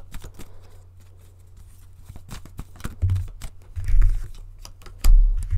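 Tarot cards being handled and shuffled: a string of quick papery clicks and flicks, with three dull thumps in the second half as the cards or hand knock on the table.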